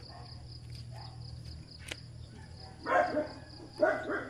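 A dog barking in short bursts about three and four seconds in, over a steady high-pitched insect trill such as a cricket's.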